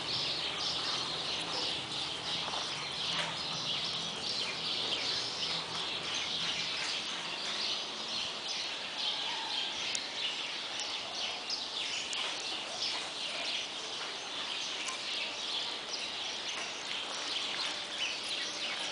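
Outdoor background of many small birds chirping continuously, a dense high twittering with no single call standing out.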